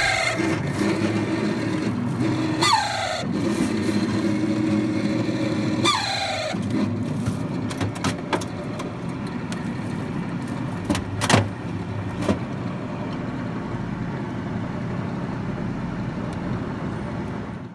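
Refrigerator fan motor running with a steady drone and a squeal that falls in pitch several times in the first six seconds, followed by scattered ticks and rattles. The noise comes from the motor's bushings running dry of oil, which the technician puts down to the fridge being left switched off for a long time.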